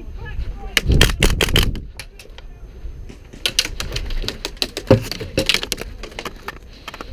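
Airsoft guns firing rapid strings of shots: a quick burst about a second in, then a longer, more scattered run of shots from about three and a half seconds in.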